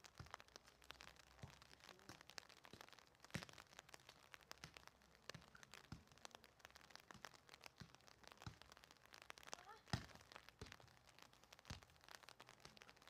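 Faint, irregular soft knocks of a soccer ball being juggled on foot, knee and head, amid a scatter of faint ticks.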